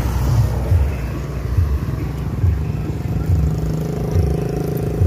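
A motor vehicle engine running steadily, its hum growing stronger about halfway in, over low thumps that come a little more than once a second.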